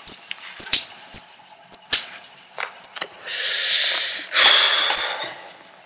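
A smoker breathing in and then blowing out cigarette smoke: two long breathy hisses in the second half. Under them runs a light, even ticking about twice a second.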